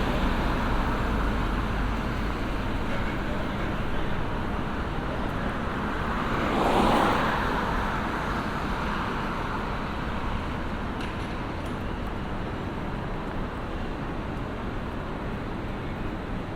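Busy city street traffic: a steady background of traffic noise, with one vehicle passing close and loudest about seven seconds in, then fading back into the general noise.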